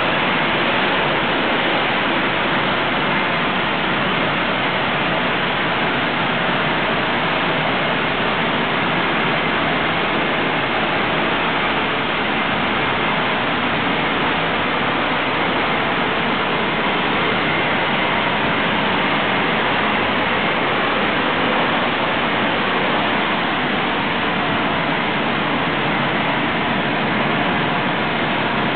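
Twin-wire arc spray gun running continuously as it metalizes steel with aluminum: a loud, steady hiss of the compressed-air jet atomizing the molten wire.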